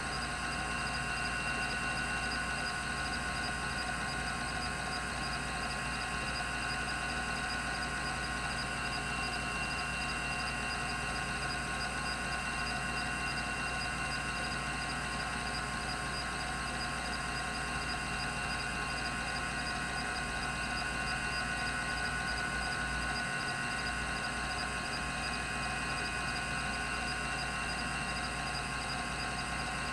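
Rodime RO352 10 MB hard drive spinning steadily at 3600 RPM, a constant whine of several fixed tones from its spindle and platters, with no head-stepping clicks.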